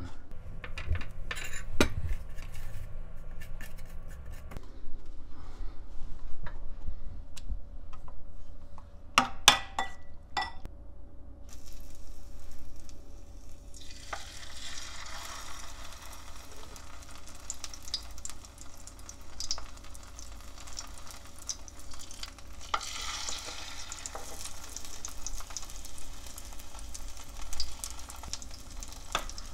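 A few clicks and knocks of handling at first, then, from about halfway through, egg-and-flour-coated raw oysters sizzling steadily as they fry in oil in a frying pan (Korean oyster jeon).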